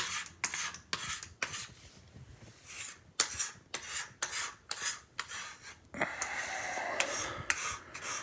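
Hand scraper scraping hydrogen peroxide paste off a water-damaged hardwood floor in quick short strokes, with one longer continuous scrape about six seconds in.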